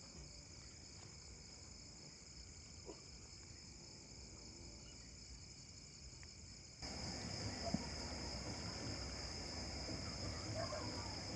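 Crickets chirping in a steady, faint, high-pitched chorus, becoming louder abruptly a little past halfway through.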